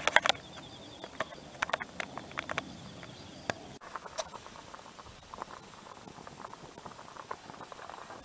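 Several sharp clicks and knocks in the first few seconds. Then water boiling hard in a mess-kit pot over a wood fire, with a steady run of small, irregular bubbling pops and crackles.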